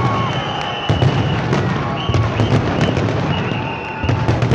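A fireworks display going off: a rapid, irregular string of sharp bangs over a continuous low rumble of bursts.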